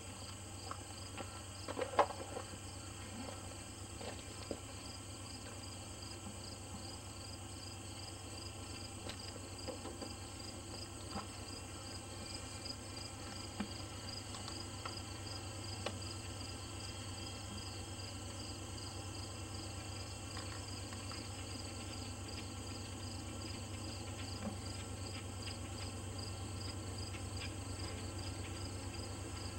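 Crickets chirping in a steady, regular rhythm over a faint low rumble from an approaching diesel freight train, which grows slightly louder near the end. A few small clicks are mixed in, the loudest about two seconds in.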